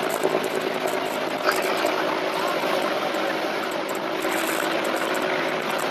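Distant helicopter hovering, a steady engine drone over a steady rush of wind and breaking surf.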